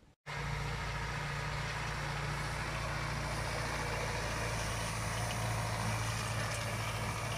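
Tractor engine running steadily at constant speed, a low even engine note with no revving, cutting in abruptly just after the start.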